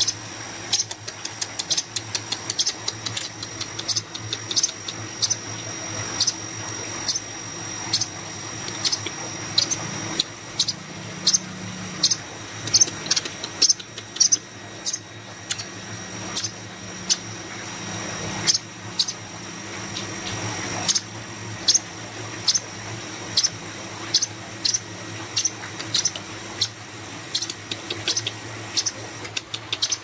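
Young cucak koreng (striated grassbird) calling with short, sharp, high chirps over and over, about one or two a second at an uneven pace. A steady, thin, high tone runs underneath.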